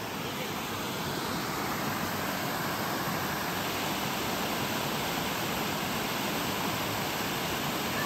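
Creek water rushing down a small cascade over smooth bedrock: a steady, even rush that grows a little louder about a second in.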